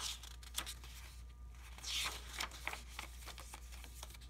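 Paper pages of a handmade journal being turned and handled: a few short paper rustles and light taps, the loudest about two seconds in.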